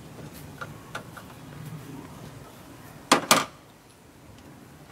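Light clicks of hand tools being handled, then two sharp metallic clanks about three seconds in, a quarter second apart.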